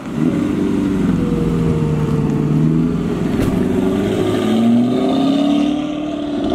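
Lamborghini Urus twin-turbo V8 driving past close by. Its engine pitch falls over the first three seconds, then climbs again from about four and a half seconds in as it pulls away.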